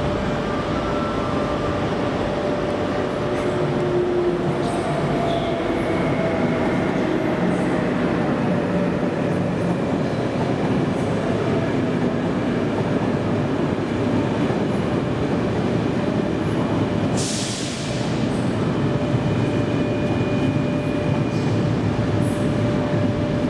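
Passenger train of Corail coaches hauled by a CP series 5600 electric locomotive rolling past through the station, a steady heavy rumble of wheels on rails with thin wheel squeal. A brief hiss sounds about three-quarters of the way through.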